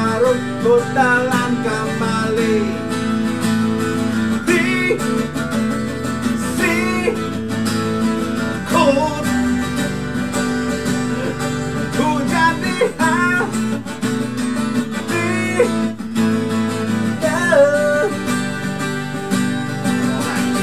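Acoustic guitar strummed and played through an instrumental passage of a song, with a melodic line over the chords.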